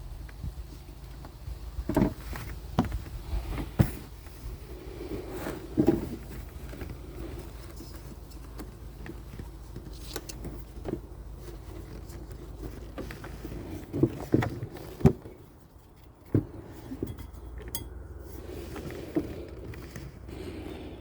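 Scattered clicks, knocks and light rattles of hands working a new serpentine belt around the engine's pulleys, with the engine off, over a steady low background hum.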